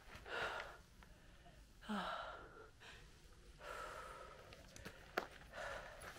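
A person breathing hard, four heavy breaths about a second and a half apart: winded from walking up a steep slope.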